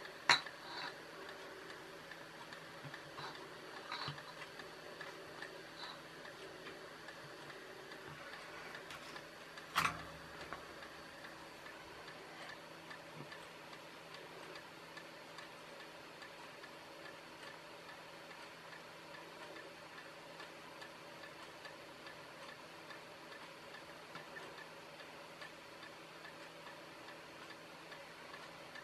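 Light clicks and one sharper knock about ten seconds in as a small circuit board and a pen-style soldering iron are handled at a workbench, over a faint, regular ticking.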